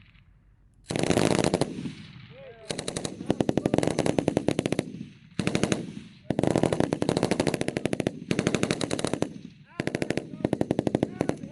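Machine guns firing in bursts of automatic fire, each about one to three seconds long, with short pauses between them, starting about a second in.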